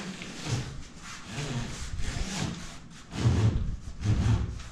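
Insulated copper refrigerant line set rubbing and scraping through a hole in the wall as it is pushed through, in about five pushes roughly a second apart.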